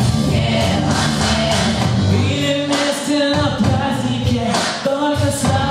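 Live amateur pop duet: a female voice sings into a handheld microphone, then a male voice takes over, over a steady instrumental accompaniment with bass and beat, all through a PA.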